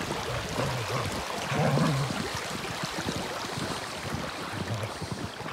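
Shallow creek running, with wind on the microphone and footsteps crunching in snow.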